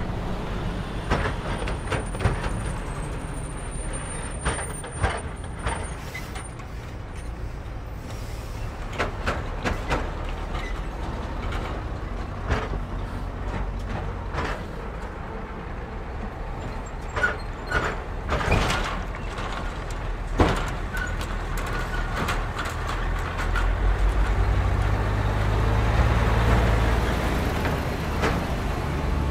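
Road traffic crossing a railway level crossing: cars and lorries drive over the rails, each passing wheel giving a sharp knock or clatter over a steady rumble of tyres and engines. Near the end a heavy semi-trailer truck's rumble grows louder as it crosses close by.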